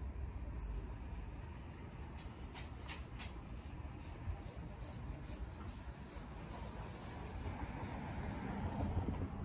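Quiet city street ambience: a steady low rumble with soft, regular scuffing footsteps of someone walking on the pavement, and a few sharper scrapes about three seconds in.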